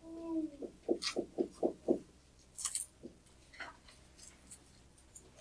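Digital pen writing on a tablet surface: a quick even run of about six taps, roughly four a second, then a few scratchy strokes. A brief falling tone opens it.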